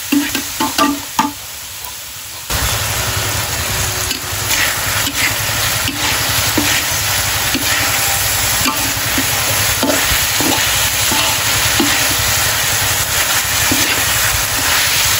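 Eel pieces sizzling in a steel wok while a metal ladle scrapes and clinks against the pan. The sizzle jumps suddenly louder about two and a half seconds in. The eel is being fried down until its juices cook off.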